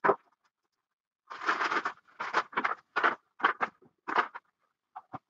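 Plastic packaging and paper crinkling and rustling in short bursts as parts are unwrapped by hand, the longest burst a little over a second in.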